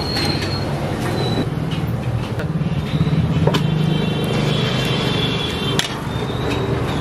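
Busy street noise: a motor vehicle engine running close by, louder through the middle, with people talking in the background.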